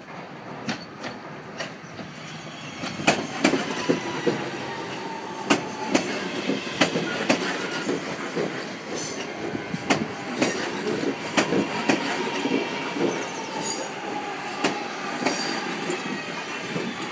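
British Rail Class 323 electric multiple unit running slowly into the platform. Its wheels clunk over rail joints and points, mostly in quick pairs, and it gets louder about three seconds in as it draws close. Under the clunks is an electric whine that slowly falls in pitch, with a few brief wheel squeals.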